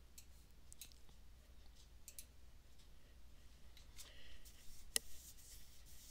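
Faint computer mouse clicks, a few scattered ones with a sharper click about five seconds in, over quiet room tone with a low steady hum.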